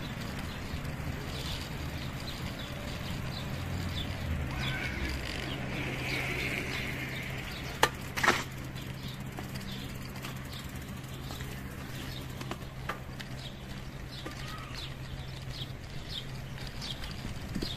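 Footsteps at a walking pace on a paved path, heard as a run of light, evenly spaced ticks over a steady low hum. Two sharp clicks stand out about eight seconds in.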